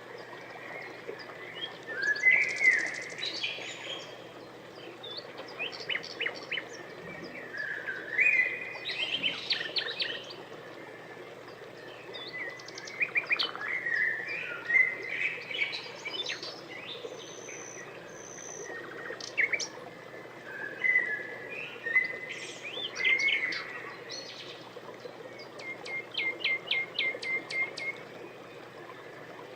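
Small birds chirping and singing: short sliding whistles and quick trills, with a fast run of ticking notes near the end.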